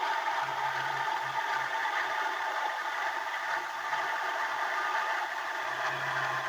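Washing machine on its spin cycle, recorded from inside the drum by a keypad phone turning with the load: a steady rattling whir, with a low hum that comes and goes, early on and again near the end.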